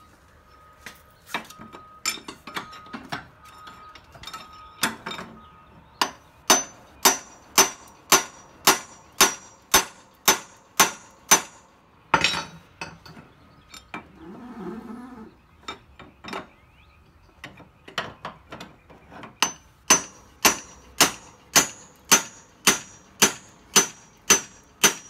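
Hammer blows on a steel bar driven against a seized Polaris RZR driveshaft, each a sharp metallic strike with a bright ring. A few light taps come first, then steady runs of about two blows a second, with a pause in the middle.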